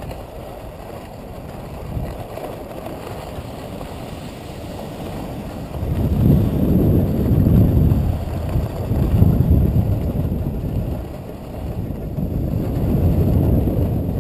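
Wind buffeting the microphone of a skier's action camera on the move: a low rumble in uneven gusts that grows louder about six seconds in.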